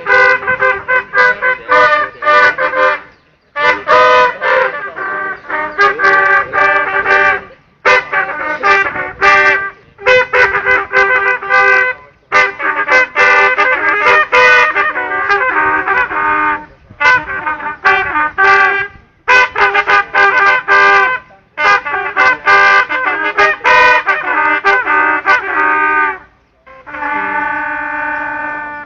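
Signal bugle playing fast phrases of short notes, broken by brief pauses, ending on one long held note.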